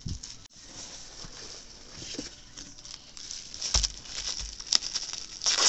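Clear plastic wrapping on a bolt of fabric rustling and crinkling as it is handled, with a couple of soft thumps a little under four seconds in and a louder crinkle near the end.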